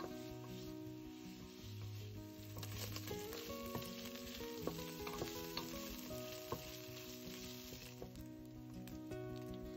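Diced lard sizzling as it fries in a pot, stirred and scraped with a wooden spatula, with a few sharp knocks of the spatula against the pot in the middle. Background music plays underneath.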